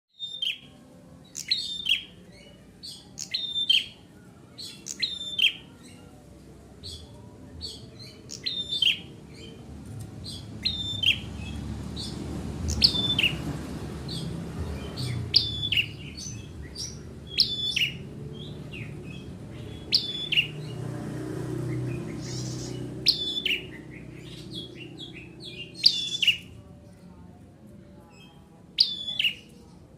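Ciblek (prinia) singing vigorously: sharp chirps, each a quick falling note, repeated in bursts every second or two. A low rumble rises underneath through the middle.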